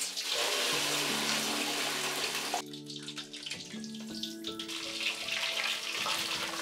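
Whole mud carp frying in hot oil in a metal wok, sizzling loudly as it goes in. The sizzle eases about two and a half seconds in, then picks up again as oil is ladled over the fish. Soft background music plays underneath.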